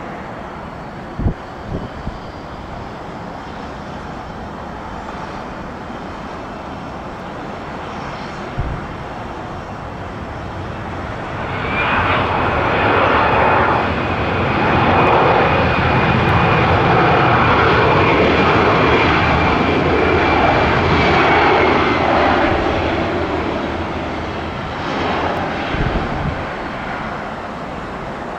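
Jet engines of a landing Airbus A320-212 passing close by. The noise swells about twelve seconds in and holds loud for about ten seconds with a steady high whine, then fades away.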